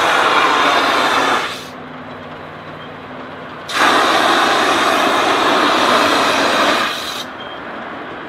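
Live-steam ride-on model locomotive venting a jet of steam from its side in two long, loud hisses. The first cuts off about a second and a half in, and the second starts near four seconds and stops about a second before the end. Between them only the quieter running of the train is heard.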